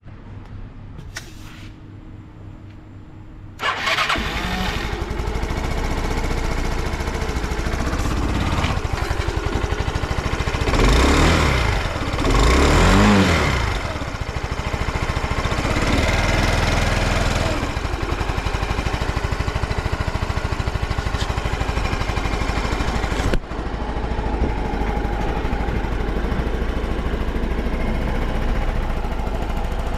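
Yamaha BWS 125 scooter's single-cylinder four-stroke engine starting about four seconds in and then idling, with two short throttle blips around the middle. It runs evenly, in good condition with no abnormal noises.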